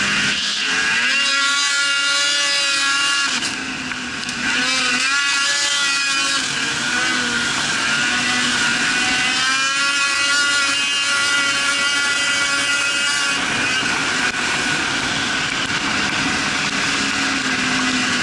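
Snowmobile engine running under throttle while riding, its pitch rising and falling with the throttle. It eases off briefly about three and a half seconds in, then picks up again.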